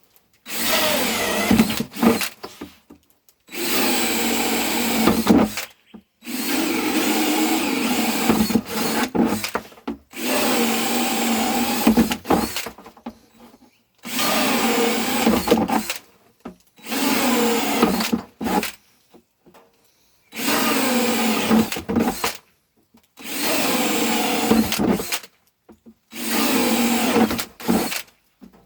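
Power drill running in about nine bursts of roughly two seconds each, at a steady pitch, with short pauses between.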